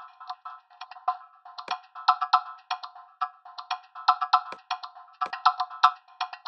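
A short percussion loop plays back through MetaSynth's Shuffler effect, its slices reordered by a stepped envelope. It is made of dry, clicky wood-block-like hits in uneven clusters, with a few deeper thuds among them.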